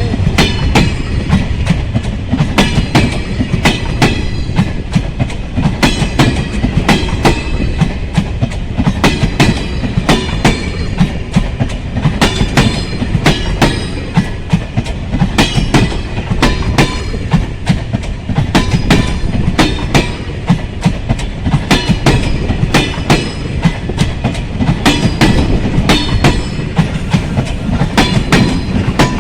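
Mixed train's wheels clattering over rail joints: a loud, continuous run of sharp clicks over a steady rumble.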